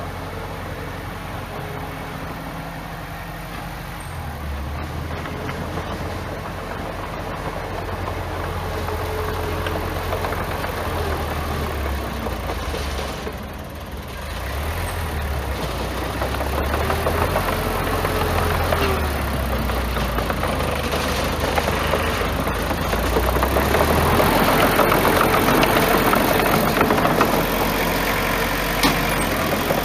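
Bulldozer's diesel engine running while working, its low note stepping up and down, with a broad mechanical noise that grows louder in the second half.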